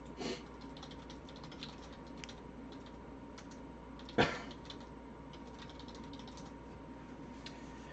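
Faint, scattered clicks of a computer keyboard being typed on, with one sharper click about four seconds in.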